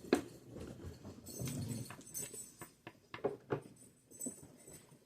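Close mouth sounds of someone eating sushi: chewing with irregular wet smacks and clicks.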